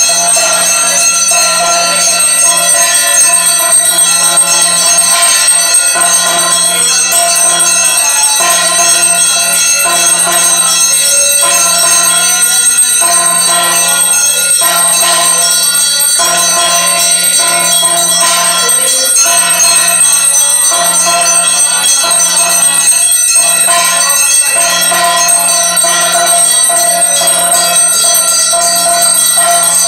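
Temple bells ringing loudly and without pause, a dense steady ringing.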